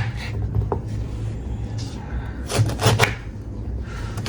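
A few knocks of a kitchen knife on a cutting board as nibuwa (hill lemon) is cut, over a steady low hum.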